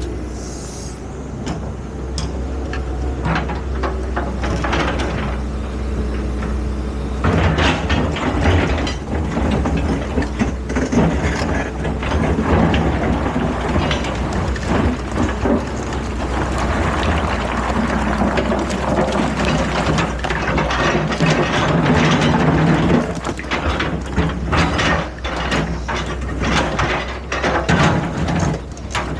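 Excavator engine running steadily under many sharp clanks, knocks and scraping of metal, which grow busier and louder about seven seconds in.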